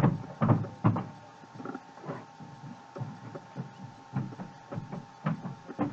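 A string of soft, irregular thumps and taps, several a second and loudest in the first second, over a faint steady hum.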